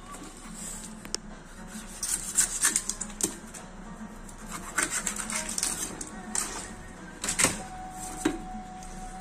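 Knife scraping and cutting along a palometa's backbone against a plastic cutting board: irregular bursts of scratchy scrapes and clicks, the loudest about two and a half and seven and a half seconds in.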